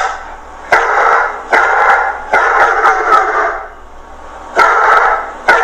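A dog barking in a series of about five sharp, short barks, with a pause of about a second just past the middle.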